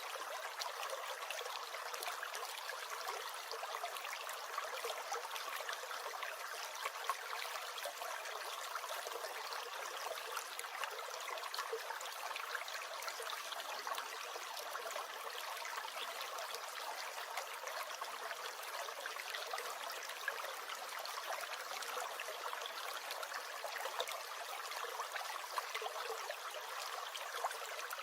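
Small stream gurgling and trickling steadily over its bed, a continuous water hiss with many small splashes.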